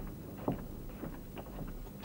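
A few irregular light knocks and taps, the loudest about half a second in, over a steady low hum.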